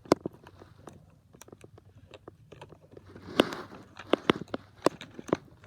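Hard plastic toy-train parts clicking and knocking as they are handled and pried apart by hand: two sharp clicks just after the start, then a cluster of about five in the second half.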